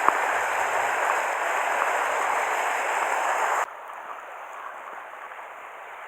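Rushing water of fast river rapids, a steady, even rush. About two-thirds of the way through it drops suddenly to a quieter, softer rush.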